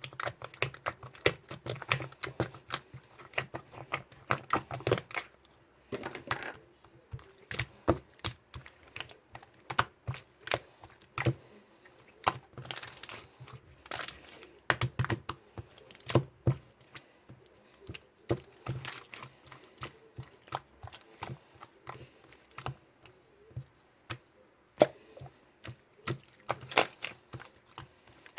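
A long run of irregular clicks and taps, several a second in busy stretches, with short pauses between clusters.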